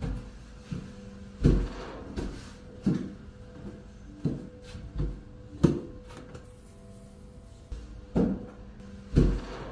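A string of dull knocks or thumps, irregular but often coming about one every second or less, over a faint steady hum.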